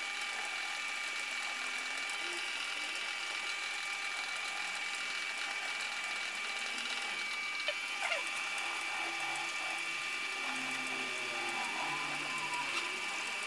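Myford lathe running steadily, its gear train whirring under a constant high whine, while a cutter in the chuck mills a slot in an aluminium plate on the vertical slide. A couple of small clicks and a short falling squeak come about eight seconds in.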